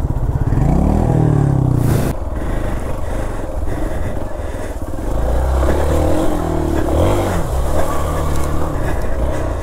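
Motorcycle engine revving and labouring over rough off-road ground. Its pitch rises in the first two seconds, then goes up and down with the throttle, and there is a sharp knock about two seconds in.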